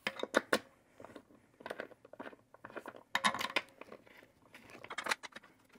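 Handling noises as an office chair's tilt mechanism is set on the underside of the seat and its bolts are fitted by hand: irregular clicks, knocks and short scrapes in several small clusters.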